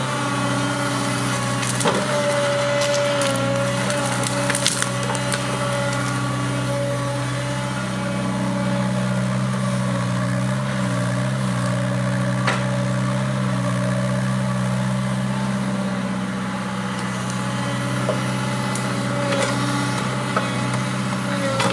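5-tonne JCB mini excavator's diesel engine and hydraulics running steadily while its Scorpion S750 root grab pulls tree roots from the ground. Sharp cracks and snaps of splintering roots and wood come every few seconds.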